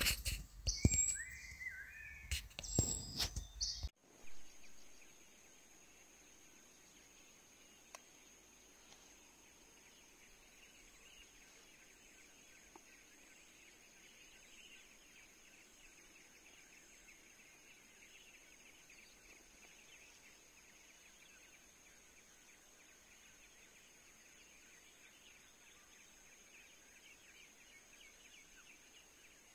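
Forest ambience: a steady high-pitched insect drone with faint bird calls. A louder passage of gliding bird-like calls cuts off abruptly about four seconds in, leaving the quiet drone.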